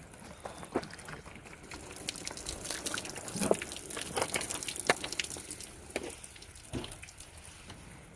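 Water being splashed and poured onto a freshly chainsaw-milled maple slab, with irregular splashes and drips and a light hiss.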